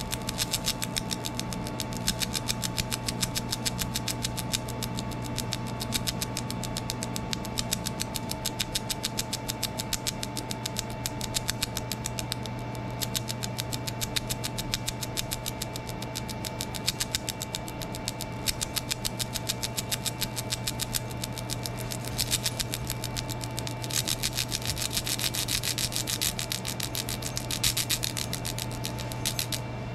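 Laser engraver stippling an airsoft gun's grip: a steady machine and fan hum under rapid, even ticking as the beam works the surface. The pulse frequency is set high enough that the laser is starting to cut rather than mark.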